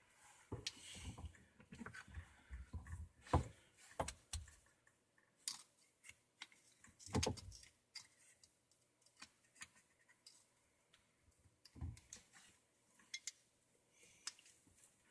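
Irregular clicks, taps and knocks of PVC pipe fittings and tools being handled in the work under a kitchen sink, with two louder knocks about three and seven seconds in.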